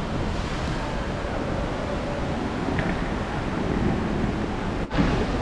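Airport terminal background noise: a steady hiss with faint distant voices, broken by a brief dropout near the end.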